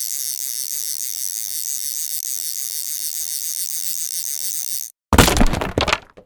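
High-pitched whine of a toy boat's small electric motor, steady with a slight wobble, cutting off abruptly about five seconds in. A moment later comes a loud, harsh burst of noise lasting about a second.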